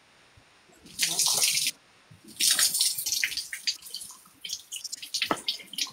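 Used engine oil poured from a bottle over a man's head, splashing onto his head and body: a short splash about a second in, then a longer, uneven run of splashing from about two seconds in.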